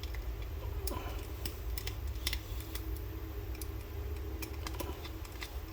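Light, irregular clicks and taps from handling a small diecast model car and its plastic packaging, a dozen or so spread over a few seconds, over a steady low hum.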